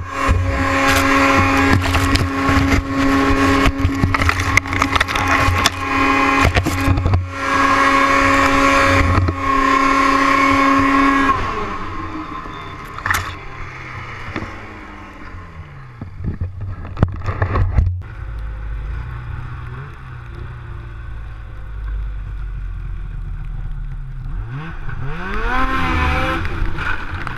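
Snowmobile engine held at high revs at a steady pitch, with scraping and clattering knocks, for about eleven seconds, then winding down with a falling pitch. After an abrupt change it runs lower and revs up again several times near the end as the sled rides through creek water.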